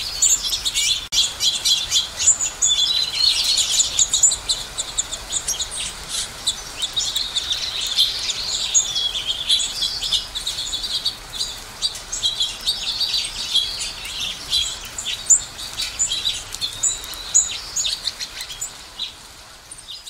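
A flock of finches chirping and twittering continuously, many quick high chirps and short trills overlapping from several birds at once; the chorus thins and fades slightly near the end.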